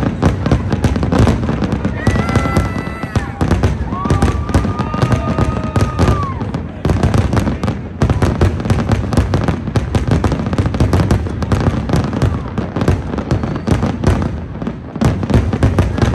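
Aerial fireworks bursting in a dense, continuous barrage of bangs and crackles, many shells going off in quick succession with no pause. Two long high whistling tones sound over it a few seconds in, the second falling away at its end.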